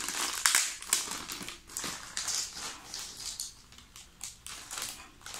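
Plastic bag crinkling and cardboard jigsaw puzzle pieces clicking and sliding on a tabletop as they are emptied out and spread by hand: a run of irregular small clicks and rustles.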